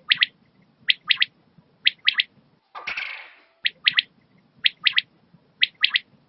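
Common quail (Coturnix coturnix) giving its repeated three-note call (the 'wet-my-lips' phrase): one sharp note, a short gap, then two quick notes, about once a second. About three seconds in, the calling breaks for a brief rushing noise lasting about a second.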